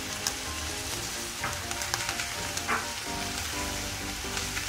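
Minced meat, onion and freshly added diced tomato sizzling in a frying pan over low heat, stirred with a wooden spatula that scrapes the pan a few times. Soft background music plays underneath.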